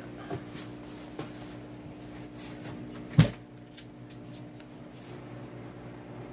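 A single sharp knock about three seconds in, with a couple of light clicks before it, over the steady low hum of the aquarium's submerged filter pump.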